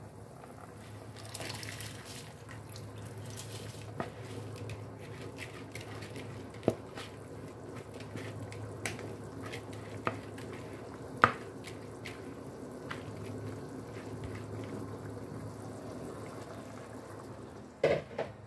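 Soaked basmati rice poured from a plastic bowl into a pot of spiced broth, splashing into the liquid, with scattered sharp knocks of the bowl and spatula against the pot over a steady low hum. Near the end the rice is stirred, with a louder clatter of the spatula in the pot.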